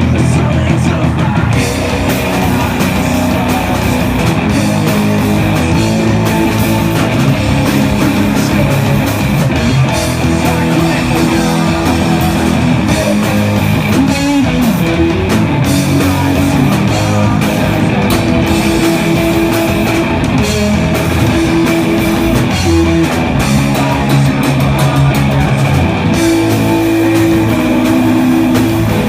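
Rock band playing live: electric guitars over bass and drums, loud and unbroken.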